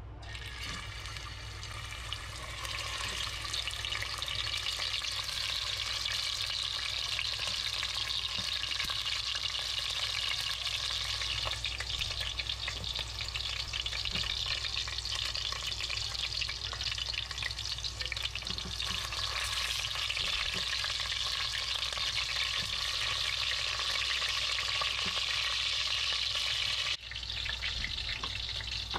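Beef short ribs searing in hot oil in a stainless steel pot: a steady crackling sizzle that grows louder about two seconds in as the meat takes the heat.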